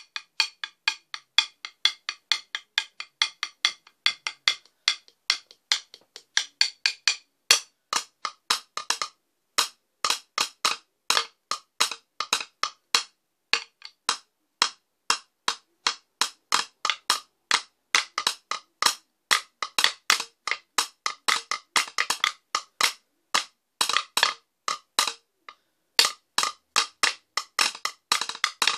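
A wooden stick drumming on the carved wooden seat of a stool: dry, sharp taps, several a second in shifting rhythms, with a few short breaks.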